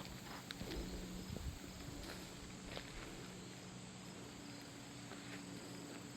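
Footsteps, a few irregular steps, over a steady outdoor background of insects chirping faintly.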